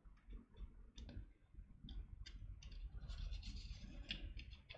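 Faint, irregular clicks, taps and scrapes of small plastic model-kit parts being handled and pressed into place, with a stretch of light rubbing a little past the middle.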